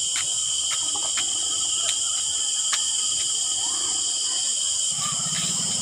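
Steady, high-pitched insect chorus in the trees at dusk. A low motor hum comes in near the end.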